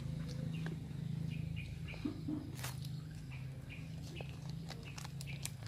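Faint bird chirps over a low steady hum, with a few soft clicks as fingers pick food from a ceramic bowl.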